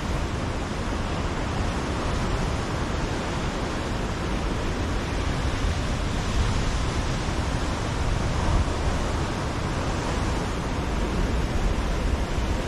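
Ocean surf breaking on a rocky shoreline: a steady, unbroken wash of waves.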